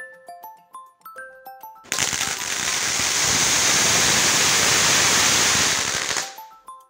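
Ground fountain firework hissing loudly with a fine crackle as it sprays sparks. The hiss starts about two seconds in and cuts off about four seconds later. A light tinkling mallet-percussion melody plays before and after it.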